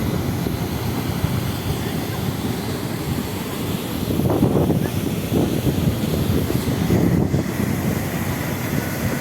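Steady rushing of the Nar-Madi waterfall's falling water, mixed with wind buffeting the microphone.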